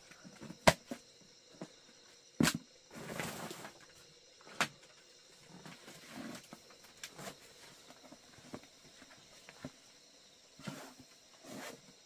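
Scattered sharp knocks and clicks, the loudest two under a second and about two and a half seconds in, with a short rustle just after the second and fainter ticks later.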